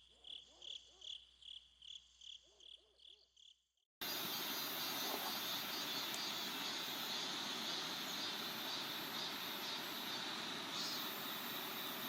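Quiet insect chirping, a high pulse repeating about four times a second. About four seconds in it cuts abruptly to a much louder steady rushing noise with a high insect buzz over it.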